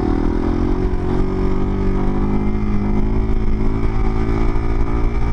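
Motorcycle engine held at a steady rev in second gear through a balance-point wheelie, the pitch barely wavering as the throttle is held even.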